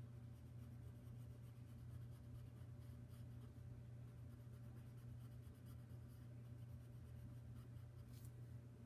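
Very faint scratching of a fine-tipped colouring tool stroking across paper, over a steady low hum.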